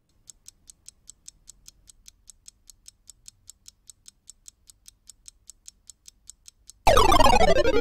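Clock-like ticking sound effect, steady at about five high, sharp ticks a second. Near the end it gives way to a much louder sound effect of several tones sliding down in pitch together.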